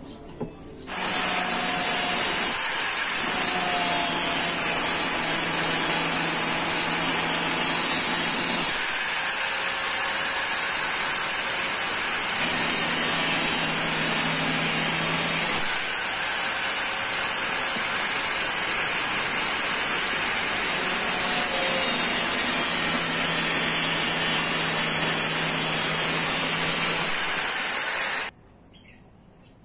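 Angle grinder with a thin cut-off disc cutting through a square steel box tube, running steadily with a high whine. It comes in suddenly about a second in and cuts off suddenly near the end.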